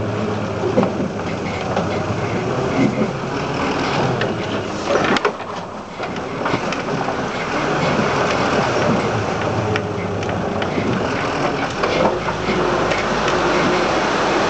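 Land Rover Series IIA short-wheelbase 2.25-litre four-cylinder petrol engine running under load as it drives slowly over a rough, muddy track, with the body and fittings rattling and knocking over the bumps. The engine note dips briefly about five seconds in, then picks up again.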